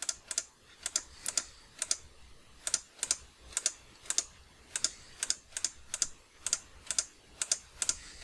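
Computer mouse button clicking repeatedly, each click a quick press-and-release pair, about two a second.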